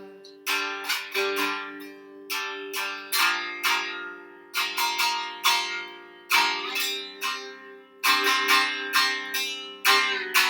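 Acoustic guitar strumming chords in a steady rhythm, with no voice: the instrumental close of a children's sing-along song.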